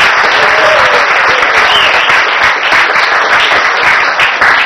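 A roomful of dinner guests applauding, loud and steady clapping.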